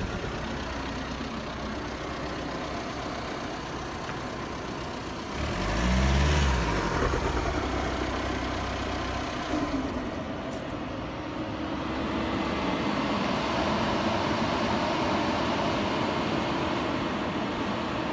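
Audi A6 2.0 TDI four-cylinder diesel engine running, with one brief rev about six seconds in, its pitch rising and falling back.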